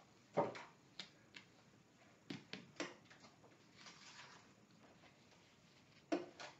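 Faint rustling and light taps of glitter iron-on vinyl pieces on their plastic carrier sheet being handled and positioned on a shirt, in a series of brief separate sounds.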